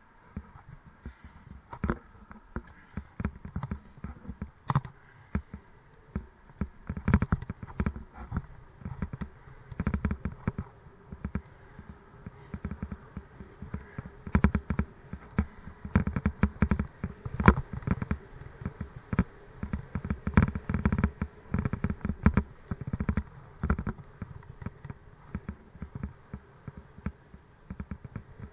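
Irregular rattles and knocks of a Raleigh Mustang Elite mountain bike riding over rough road surface, starting about a second in, over a faint steady buzz.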